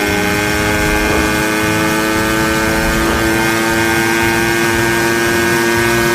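Cartoon sound effect of a motorcycle engine running flat out at high speed: a steady, high-pitched engine drone that edges slightly higher about three seconds in.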